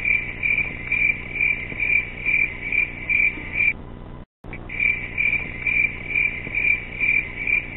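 Night-time chirping sound effect: a high, even chirp repeating about two to three times a second. It stops for about a second near the middle, then starts again.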